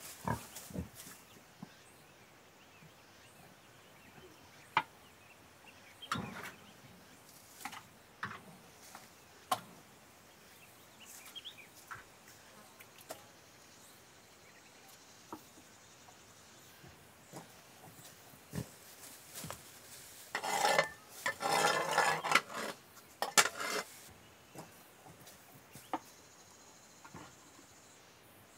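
Domestic pigs grunting in a pen, with scattered short knocks and noises and a louder burst of pig sounds lasting about three seconds roughly three-quarters of the way in.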